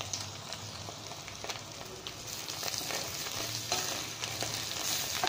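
Dried omena (tiny sardine-like fish) and sliced onions sizzling as they fry over medium-high heat in a metal pot, stirred with a wooden spoon that scrapes and clicks against the pot. The sizzle grows louder about halfway through.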